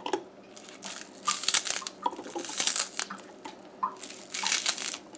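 Dry crinkling and tearing in about five irregular bursts, as seasonings are prepared by hand.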